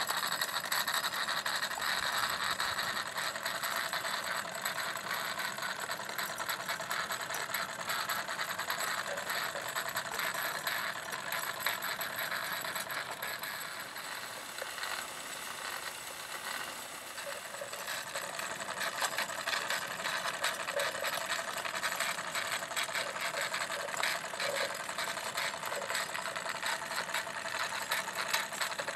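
Wilesco D40 toy steam tractor running under steam: its small steam engine, gears and drive chain make a fast, steady rattling clatter over a hiss.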